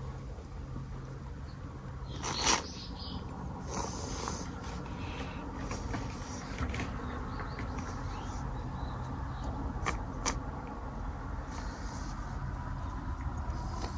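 Cats licking and smacking at Churu lickable treat paste, a run of small wet clicks and smacks, with a louder rustling burst about two and a half seconds in, over a steady low rumble.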